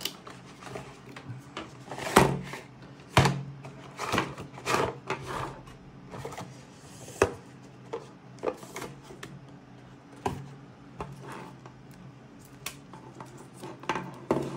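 Irregular clicks and knocks as plastic LED light strips, their cables, a cigarette-lighter plug and a small remote are handled and set down on a desk during unpacking.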